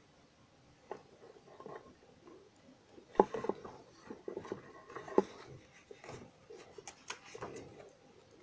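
Faint handling noise: irregular small clicks and light scraping of small objects being moved by hand, with the sharpest clicks about three seconds and five seconds in.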